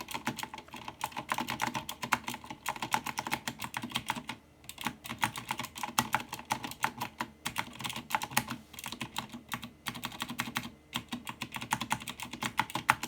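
Razer BlackWidow mechanical keyboard with clicky Razer Green switches, part of it fitted with metal keycaps, being typed on quickly in a steady run of clicking keystrokes with a few short pauses.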